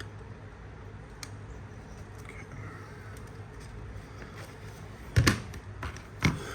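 Low steady hum of room tone, then two sharp knocks about a second apart near the end, the first the louder.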